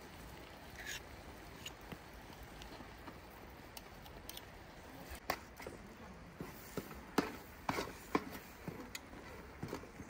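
A metal ladle stirring a pot of simmering pomegranate seeds, scraping and knocking against the metal pot. There are a few sharp clicks at first, then a run of irregular knocks from about halfway through.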